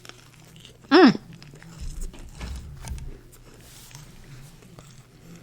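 A person chewing food close to the microphone, with faint wet mouth clicks, and one short hum of the voice about a second in.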